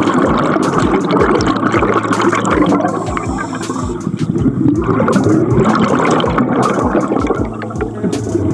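Bubbling, churning water picked up by a camera underwater on a scuba dive, with irregular low thumps.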